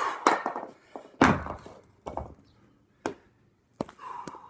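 Two 28 kg kettlebells set down on a tiled floor: a heavy thunk about a second in and a smaller thud about a second later. Hard breathing and a few sharp clicks are heard around them.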